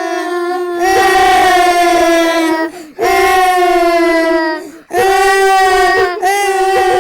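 Small girls crying: long, loud, high wails held for a couple of seconds each, with short breaks for breath between them.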